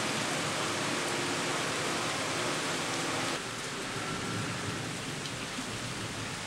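Heavy rain falling steadily, an even hiss of water on the ground and surfaces, dropping suddenly in level about halfway through.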